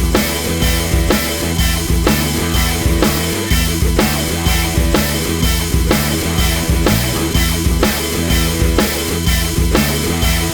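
Background rock music with a steady drum beat and bass line.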